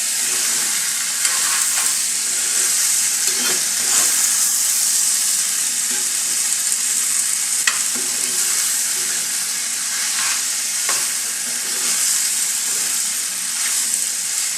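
Sausage and vegetables sizzling steadily as they fry in a pan with no water added. A spoon stirs and scrapes through them every second or two.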